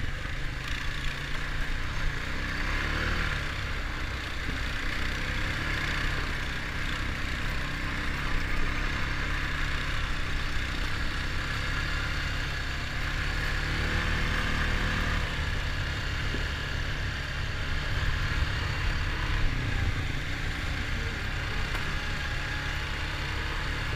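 Honda ATV's single-cylinder four-stroke engine running steadily under way on a trail.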